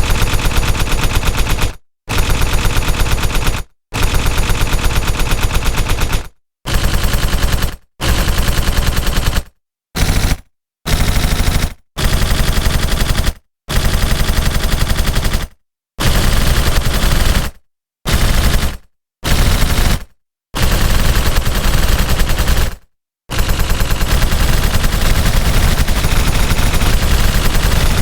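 Stylized machine-gun fire sound effect: rapid automatic shots in bursts, most of them one to two and a half seconds long, split by short gaps, ending in one long continuous burst from a little past twenty-three seconds.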